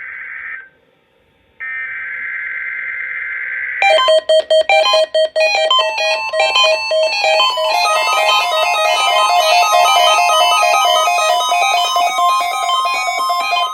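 NOAA Weather Radio SAME header data bursts: a brief buzzy warble, a second of silence, then a longer burst about two seconds long. From about four seconds in, music with a quick run of short notes plays loudly.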